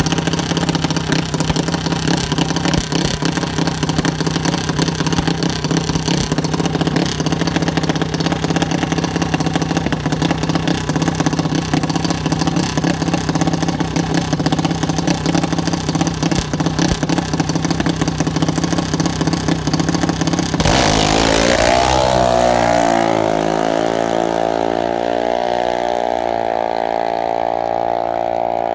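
Junior dragster's single-cylinder engine idling steadily for about twenty seconds, then launching at full throttle: its pitch sweeps up and holds high as the car pulls away down the track and fades into the distance.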